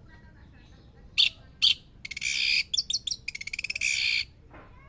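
Orange-headed thrush singing: two sharp high notes about a second in, then a loud, busy song phrase of about two seconds with a fast trill in the middle.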